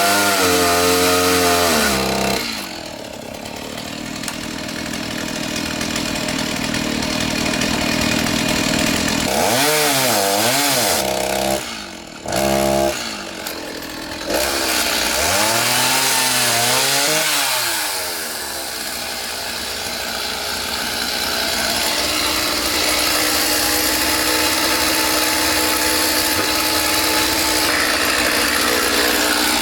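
Stihl chainsaw cutting wood. The engine revs up and down several times, with longer stretches of steadier running between the revs, and it drops off briefly about twelve seconds in.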